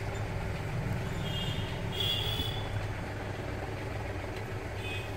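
Steady background noise: a low rumble and hum with no distinct event, and a faint high tone about two seconds in.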